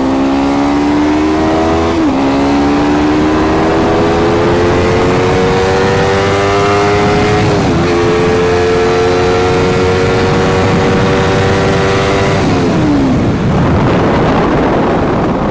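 Sport motorcycle accelerating hard: the engine note climbs, dips at an upshift about 2 seconds in and again about 8 seconds in, then holds at high speed. Near the end the throttle is rolled off, the engine note drops away and rushing wind takes over, picked up on a wireless lavalier mic clipped at the rider's belt.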